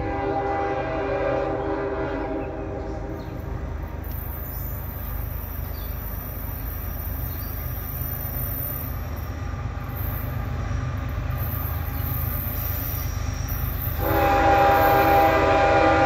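A diesel locomotive's five-chime Nathan K5HL air horn, on the lead GE ES44AH of a CSX coal train, sounds for a grade crossing. One long blast fades out in the first few seconds. A louder long blast starts near the end, and the low rumble of the approaching train runs under both.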